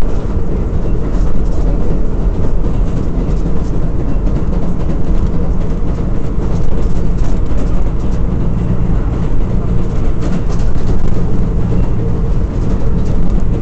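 Interior of an R188 subway car running at speed: a steady, loud rumble of wheels on the rails, with scattered faint clicks from the track.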